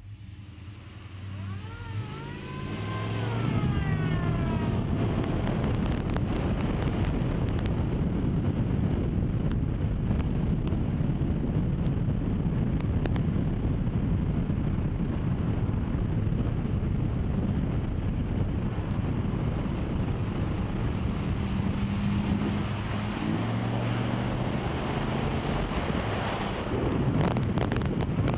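Car engine running while driving, under heavy wind noise buffeting the microphone. A brief rising-and-falling whine comes about two seconds in, and the engine rises in pitch briefly about two-thirds of the way through.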